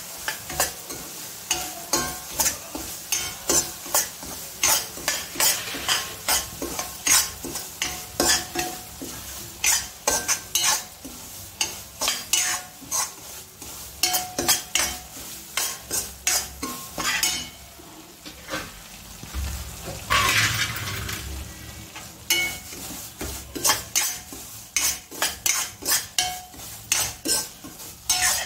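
A steel spatula scraping and knocking against a stainless steel pan as semolina is stirred and roasted in ghee and oil, in quick, regular strokes about two a second over a low sizzle. A brief louder hiss comes about two-thirds of the way through.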